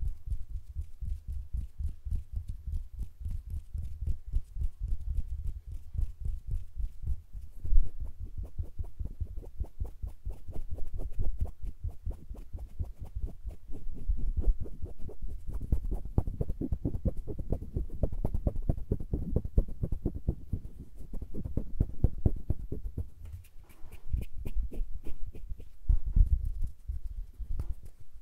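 Hand sounds close up on a microphone: fingers fluttering and brushing in a fast, soft patter, over a low rumble of hands moving air at the mic. The patter swells and fades in waves.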